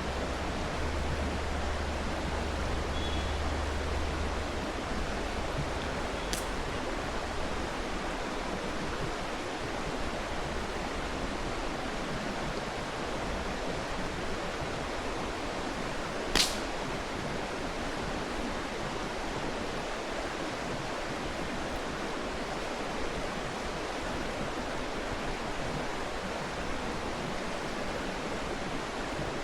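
Mountain stream rushing steadily, with sharp pops from a wood campfire: a faint one about six seconds in and a loud crack about sixteen seconds in.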